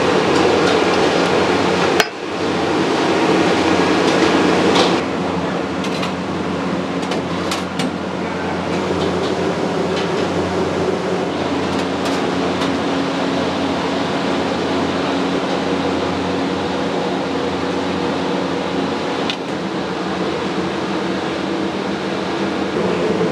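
Steady roar and low hum of a commercial kitchen's burners and extraction fans. A sharp knock about two seconds in, as a cleaver strikes the chopping block, and a few light clicks later.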